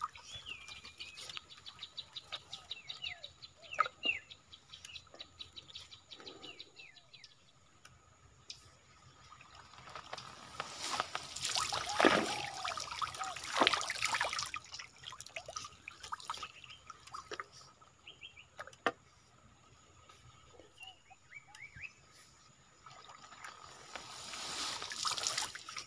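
Water splashing and trickling in short irregular bursts around a fishing lift net in a muddy stream, with a rising splash and run-off near the end as the net comes up. Small birds chirp now and then.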